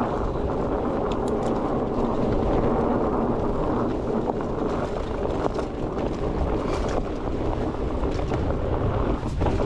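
Fat bike rolling fast down a dirt trail: a steady rush of wide tyres on dirt mixed with wind buffeting the microphone, with a few light clicks and rattles from the bike.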